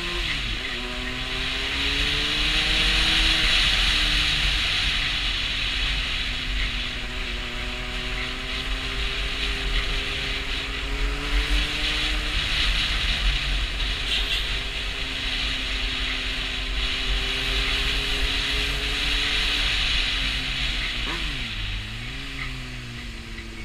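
Honda CB600F Hornet's inline-four engine running at light throttle in low gears. Its pitch climbs for the first few seconds, holds fairly steady, and drops sharply and briefly about 21 seconds in as the throttle is closed. A steady hiss of wind over the microphone runs under the engine.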